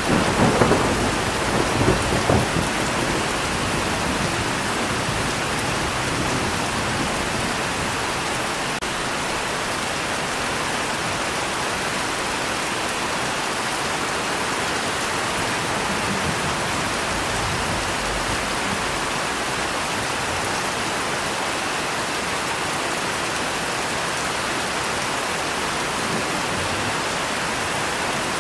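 Steady heavy rain, with a rumble of thunder that swells up in the first two or three seconds and fades back into the rain.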